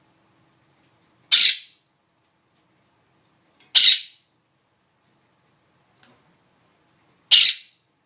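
A pet bird giving three short, harsh squawks, a few seconds apart.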